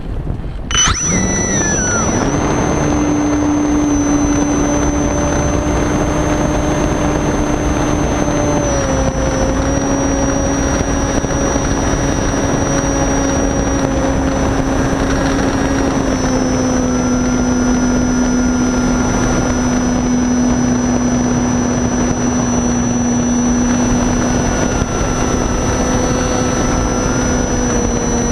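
The Reichard Blizzard glider's motor and propeller start about a second in, spin up quickly and run at a steady, high-pitched climb tone with a faint higher whine, easing down slightly in pitch a couple of times, heard from a camera on the model with airflow rushing past.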